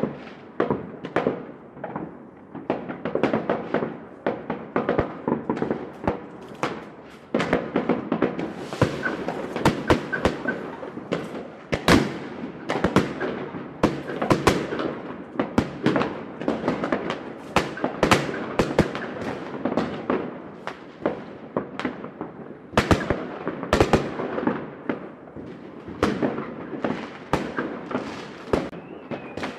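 Fireworks going off over a city: many irregular sharp bangs and pops, often several a second, over a continuous wash of echoing reports.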